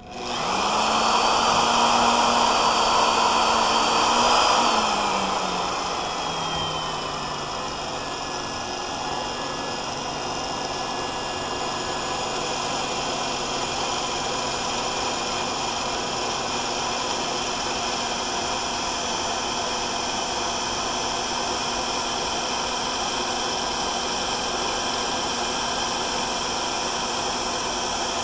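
Power drill boring a Walter HSS twist bit dry, without lubrication, into a hardened spring-steel leaf spring. The motor starts suddenly with a steady whine; about four to five seconds in its pitch drops as it comes under load and it runs on steadily at the lower pitch while cutting, with no chipping sounds.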